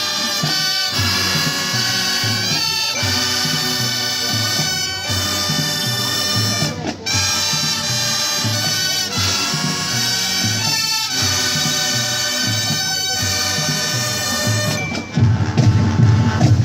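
Marching brass band playing: held brass chords in phrases about two seconds long over a pulsing bass line. The band gets louder about fifteen seconds in.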